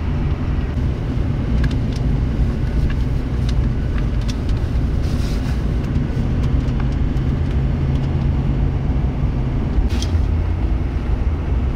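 Interior of a large vehicle driving on a highway: a steady low rumble of engine and road noise, with a few faint clicks and rattles.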